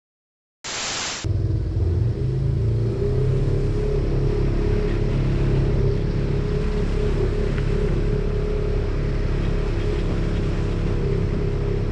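Polaris RZR side-by-side's engine running steadily as it drives along a muddy trail, a constant drone that starts abruptly about a second in after a brief hiss.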